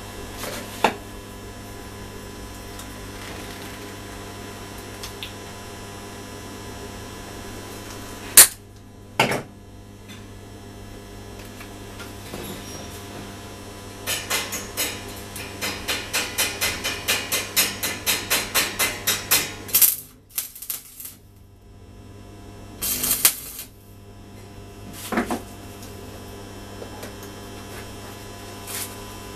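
Stick-welding steel rod: a steady electrical hum from the welder, a few sharp metal clicks, then about six seconds of rapid pulsing arc crackle, roughly three pulses a second, as tacks are laid. Two shorter crackling bursts follow.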